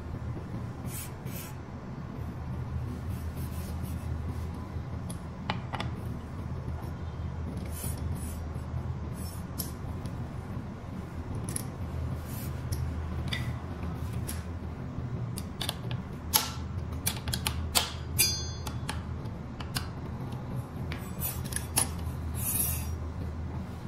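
Metal hand tools, a T-handle hex key and an adjustable wrench, clicking and clinking against the scooter's disc brake caliper and wheel fittings in scattered light taps that come thicker in the second half, over a steady low hum.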